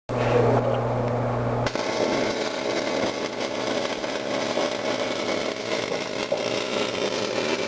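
MIG welder arc on steel, a steady dense crackle. It is preceded for about the first second and a half by a low electrical hum, which stops as the crackling takes over.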